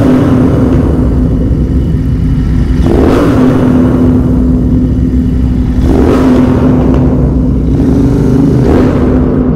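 Royal Enfield Interceptor 650's parallel-twin engine through a Red Rooster full-system exhaust, running at low speed and revved briefly about every three seconds, four times. The exhaust note echoes off the concrete walls of an underpass.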